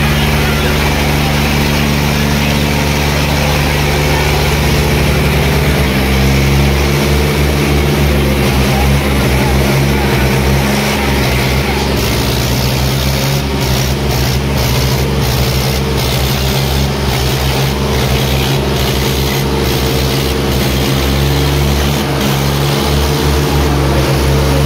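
Diesel tractor engines running hard at high revs under load, steady and loud, their pitch shifting a little partway through.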